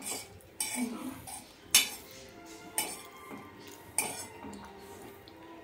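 A metal fork scraping and clinking against a shallow metal pan as cooked okra is pushed out of it, with about five sharp clinks spread through the scraping.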